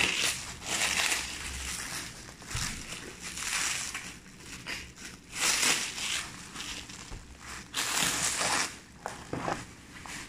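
Clear plastic stretch wrap being pulled and peeled off a cardboard box, crinkling and rustling in irregular bursts, loudest about five and a half seconds in and again about eight seconds in.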